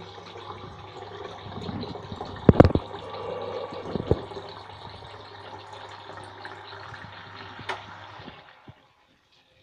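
Rainwater rushing through a pipe and brass ball valve into a plastic tank, over a steady low hum. Two loud knocks, a couple of seconds in and again about four seconds in, and the sound cuts off abruptly near the end.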